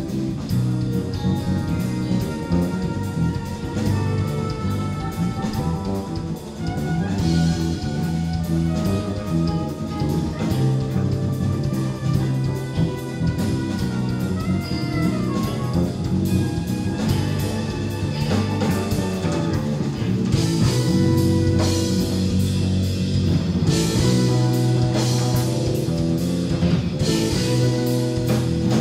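Jazz-rock fusion band playing live: soprano saxophone, electric guitar, electric bass, keyboards and drum kit. The drums and cymbals hit harder over the last third.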